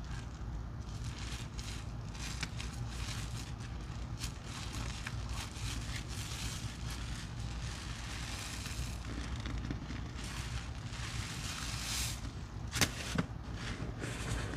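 Wet, foamy suds of a soap and baking-soda cleaning mix crackling and squelching as soaked sponges are squeezed and worked, with two sharper clicks near the end.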